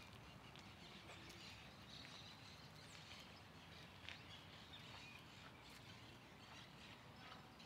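Faint outdoor ambience: scattered short bird chirps over a low, steady background rumble.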